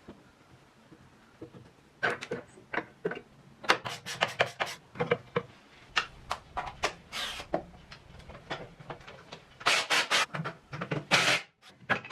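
Irregular knocks, clicks and rubbing scrapes of objects being handled, starting about two seconds in, with a denser, louder run of scraping near the end.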